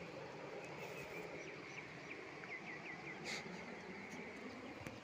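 Faint outdoor ambience: a steady background hiss with a high insect buzz, a quick run of about six bird chirps a little past halfway, and a sharp click just after them.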